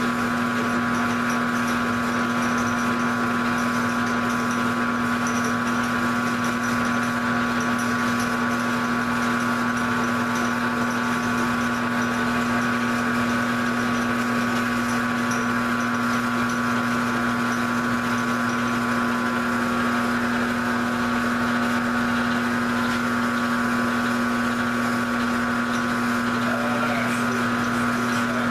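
Grizzly G0705 geared-head mill/drill running steadily, its motor and gearbox giving a constant hum and whine, while the table is hand-fed to take a light facing cut across an old vise.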